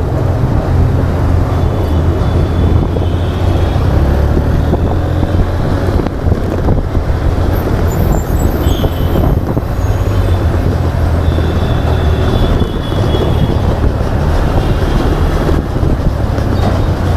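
Motorcycle engine running while riding in traffic, picked up with wind rumble on the action camera's built-in microphone. The sound is loud and steady throughout.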